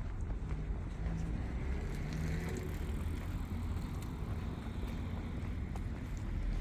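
City street ambience: a steady low rumble of road traffic, with a passing engine briefly heard in the first half.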